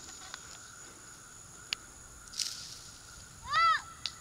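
Quiet outdoor field ambience with a steady, thin, high insect trill. There is a faint click and a brief hiss partway through, and near the end a short pitched call that rises and then falls.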